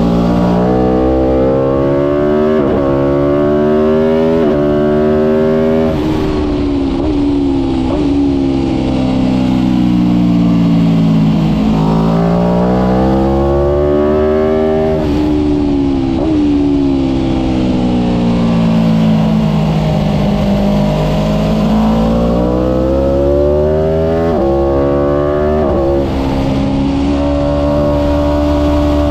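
Aprilia RSV4 1000 RF's V4 engine at full throttle, revving up through the gears with quick upshifts, then falling in pitch as it slows for corners. This happens three times over.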